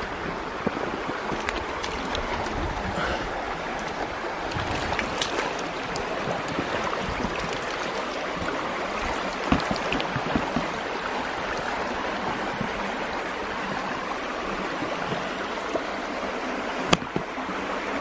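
A rain-swollen valley stream rushing steadily, with a few sharp clicks and knocks over it, the loudest about halfway through and near the end.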